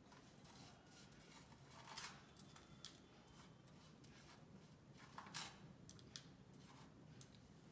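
Near silence with a few faint rustles and light taps, about two seconds in and again past five seconds, as whole spices are tipped in with the other ingredients for grinding.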